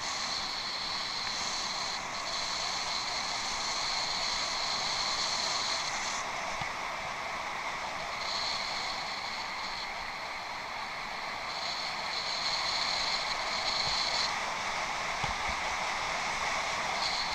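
Bicycle riding over an off-road trail: a steady rush of tyre and wind noise, with a high thin buzz that cuts in and out several times.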